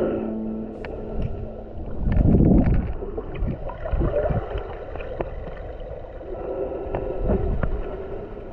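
A boat under way on the water: a steady low rumble with the rush of water, surging louder about two seconds in.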